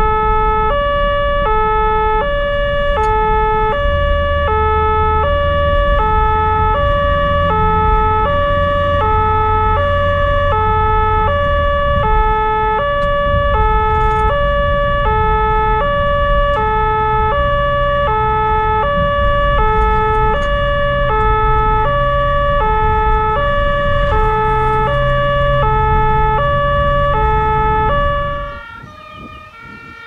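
German-style two-tone emergency siren on a responding fire brigade vehicle, switching between a low and a high tone about every two-thirds of a second, over the vehicle's engine and road noise. The siren cuts off near the end and the sound drops much quieter.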